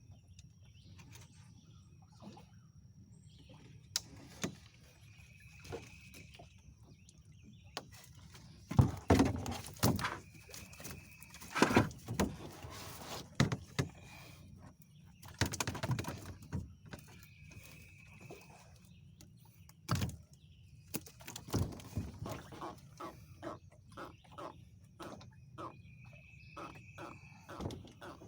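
A bird giving a short, steady-pitched call over and over every few seconds, over irregular knocks and rattles that are loudest in the middle, with a quick run of taps near the end.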